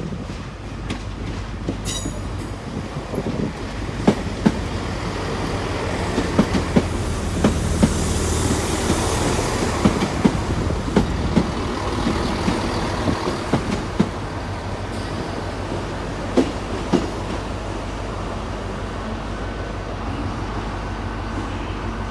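Class 166 diesel multiple unit arriving, its diesel engines running with a steady low hum while its wheels click over rail joints from about four seconds in until about seventeen seconds.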